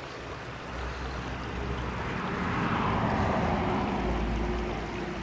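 Steady rush of flowing creek water mixed with wind buffeting the microphone, swelling to its loudest about three seconds in and then easing.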